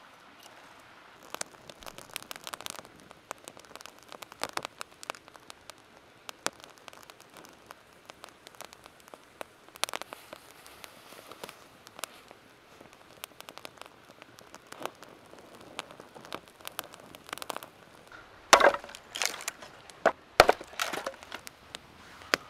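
Young campfire of split kindling crackling, with irregular small pops all through. Near the end come a few louder sharp cracks of wood.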